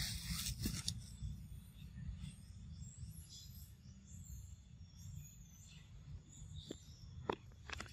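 Quiet outdoor ambience: a steady low rumble under faint, steady high tones, with a short rustle at the start and a few sharp clicks near the end.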